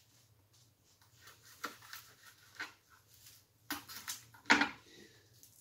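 Light taps and clicks of a knife and a garlic clove being handled on a cutting board, a handful of short knocks with the loudest about four and a half seconds in.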